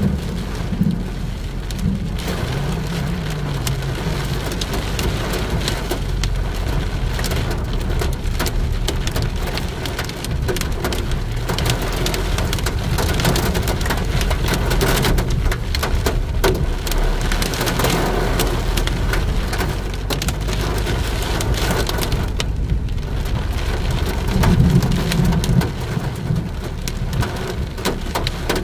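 Heavy rain falling hard, a dense steady patter of drops, with a steady low rumble underneath.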